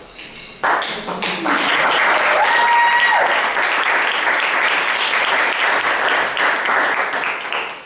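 Audience applauding; the clapping starts suddenly about a second in and stops near the end, with one short high cheer about two seconds in.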